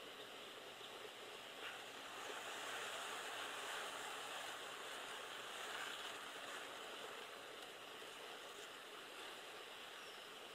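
Faint, steady outdoor background hiss with no distinct events, swelling a little between about two and seven seconds in.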